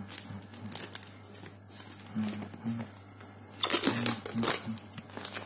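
Clear plastic shrink-wrap crinkling as it is pulled and peeled off a phone box by hand, loudest in a burst about three and a half seconds in.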